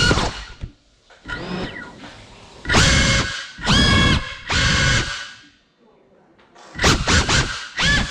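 CineLog35 FPV cinewhoop drone's motors and ducted propellers whining in throttle bursts, the pitch rising and falling with each punch. A near-quiet pause past the middle is followed by a run of quick, short bursts near the end.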